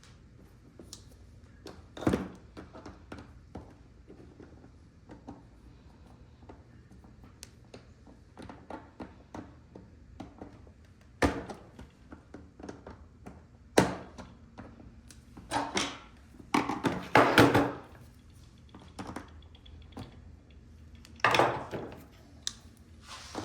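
Metal clicks, taps and knocks of a doorknob lock being worked on with a hand tool, coming irregularly, with a denser run of knocking and scraping about three quarters of the way through.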